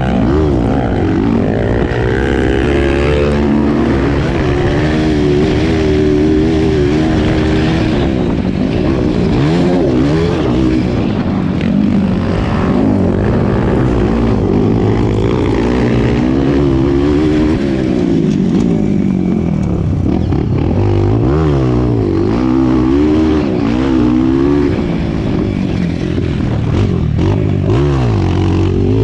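Dirt bike engine heard from onboard while riding a motocross track, its pitch rising and falling again and again as the rider opens and closes the throttle through the corners. A steady rush of wind and track noise runs underneath.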